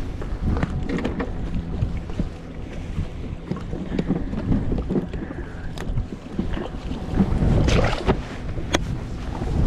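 Wind buffeting the microphone over water lapping at a bass boat, with scattered sharp clicks and knocks as bass are handled and clipped with a cull tag on the deck. The loudest handling noise comes about three-quarters of the way through.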